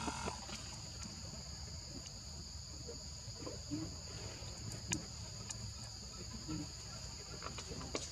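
Steady high-pitched insect chorus, holding two even high tones throughout, over a low rumble, with a few soft clicks.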